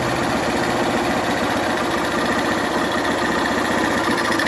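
Honda CG 125 Fan's single-cylinder four-stroke engine running steadily while being broken in after a new piston and cylinder, with no knocking noise left.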